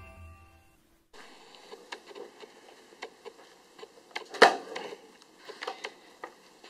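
The tail of an intro jingle fades out, then after a second of quiet come small clicks and knocks of gloved hands opening a hard, textured plastic carrying case and lifting out a handheld breathalyzer. There is one sharp, louder knock about four and a half seconds in.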